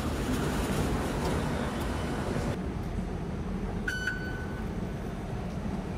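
Steady rumble of an MRT train and platform that cuts off abruptly, giving way to quieter station hum. About four seconds in, a faregate card reader gives a single short beep as a fare card is tapped on it.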